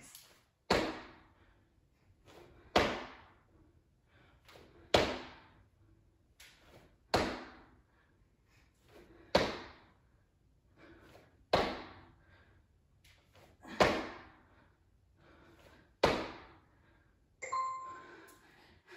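Feet in sneakers landing from jump squats on a hardwood floor: a heavy thud about every two seconds, eight in all, with lighter footfalls between. A few seconds before the end, an electronic timer chime rings out, marking the end of the work interval.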